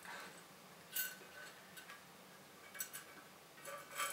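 A few light metallic clicks as a small steel E-ring is pressed and fumbled onto the groove of a telescope mount's tension rod, the sharpest about a second in with a brief ring, a quick pair near three seconds and a cluster near the end. The ring is a fiddly fit and has not yet snapped into place.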